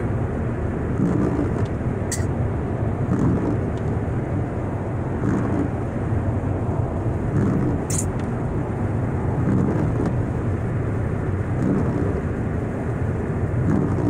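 Steady low rumble of a car driving at highway speed, heard from inside the cabin, with tyres running on wet, slushy pavement. Two brief high swishes come about six seconds apart.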